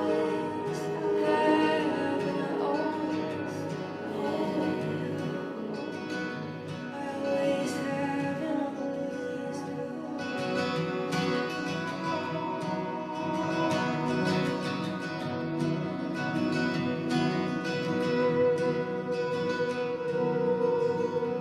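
Slow song with plucked acoustic guitar and a woman singing, processed with long reverb so it sounds as if it is playing in a large empty arena.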